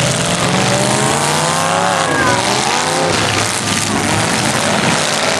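Demolition derby car engine revving hard: its pitch climbs for about two seconds, then drops and wavers, over the steady din of other running engines.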